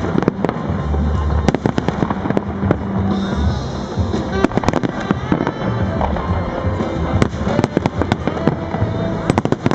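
Fireworks display: aerial shells bursting in quick, irregular succession, many sharp bangs throughout, over music playing along with the show.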